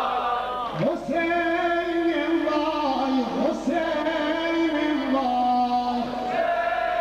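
A solo male voice singing a long, held chant line that enters about a second in and steps down in pitch. Group chanting is heard just before it and again near the end.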